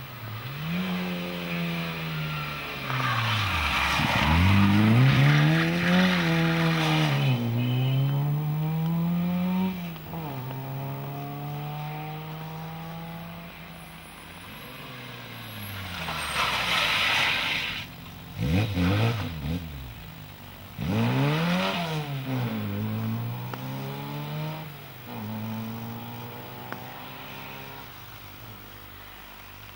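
Small four-cylinder engines of historic rally cars, a Fiat 127 Giannini and an Autobianchi A112 Abarth, driven hard past on a stage, the revs climbing and dropping again and again as the drivers shift gear and lift for bends. Short bursts of hiss from the tyres on the wet road come in the second half.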